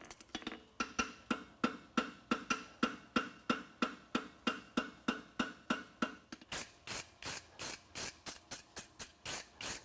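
Farrier's rounding hammer striking a hot steel bar shoe on the anvil: a steady run of ringing blows, about three or four a second. About six and a half seconds in, the blows turn sharper and brighter.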